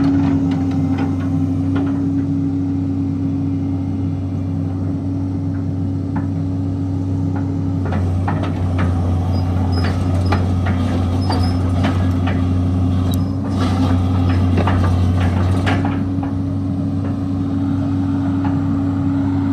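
Hitachi UH083 LC 20-ton hydraulic excavator's diesel engine running steadily, with a low hum and a steady higher tone. A run of sharp clicks and clanks comes through about halfway in.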